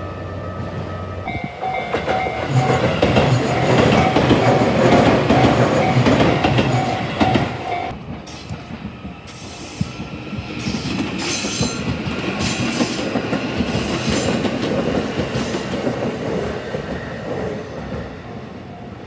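Train passing over a level crossing: a loud rumble with wheels clattering over the rail joints. A steady warning tone sounds over it for the first eight seconds or so and then stops.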